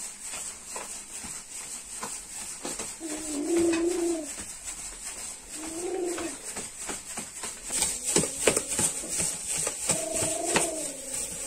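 A dove cooing three times, each call short and low. Around eight seconds in, a gloved hand squelches and slaps as it mixes thick grated-yam batter in a plastic bowl.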